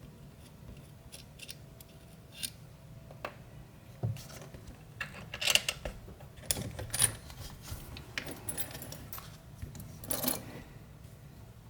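Irregular small metallic clicks and clinks of a Fichet 450 lock's metal parts and a screwdriver being handled while the lock is taken apart.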